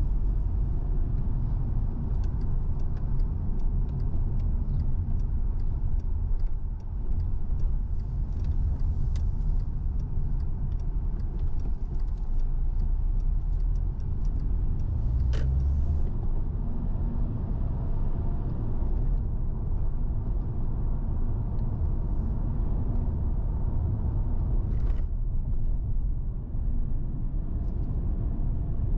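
Car driving along a road: a steady low rumble of engine and tyres, with scattered light ticks and one sharper knock about 15 seconds in.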